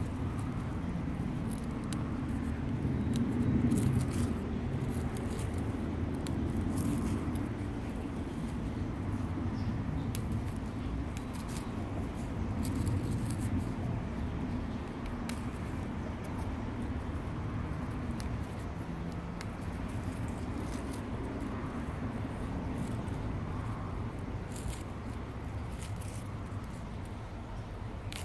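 Steady low background rumble with faint, scattered small snaps and leaf rustles as fingers pinch spent flowers and seed pods off an azalea shrub.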